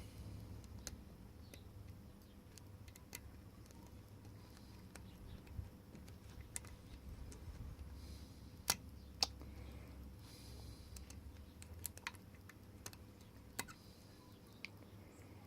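Faint, scattered clicks of a pick and tension wrench working the pin tumblers of a padlock with mushroom security drivers, with two sharper clicks about nine seconds in.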